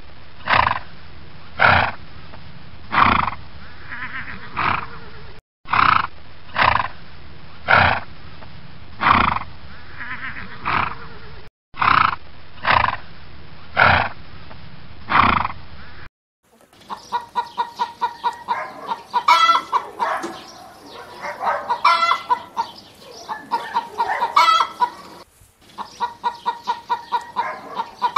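Horse calls: a short clip of sharp calls every second or so, looped three times. About 16 seconds in it gives way to chickens clucking in quick runs of short pulsed calls.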